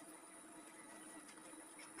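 Near silence: faint steady room hum with a few soft clicks.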